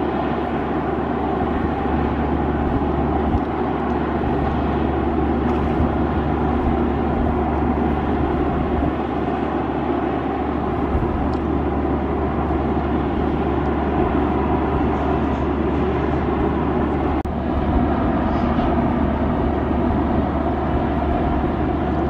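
Steady drone of an inland motor cargo ship's diesel engine running as the ship passes.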